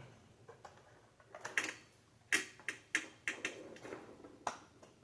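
A run of sharp plastic clicks and snaps, about eight in the space of three seconds, as the Xbox Series S's plastic housing is pried apart.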